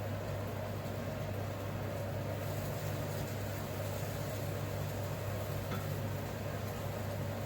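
Steady electrical hum with a fan-like hiss from a running kitchen appliance, unchanging throughout.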